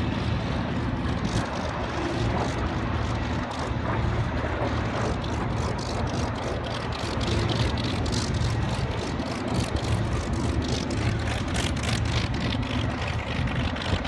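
An aircraft engine running steadily, with a rapid, irregular crackle that grows denser from about five seconds in.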